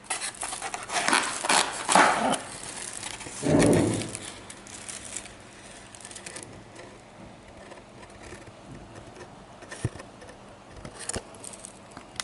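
Handling noises of food being packed into a takeaway box: scattered taps, clicks and rustles, busiest in the first few seconds, with one louder dull rustle about three and a half seconds in, then quieter occasional taps.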